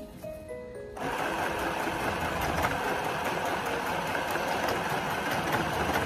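Electric sewing machine stitching at a steady, fast speed. It starts about a second in and stops just at the end, over faint background music.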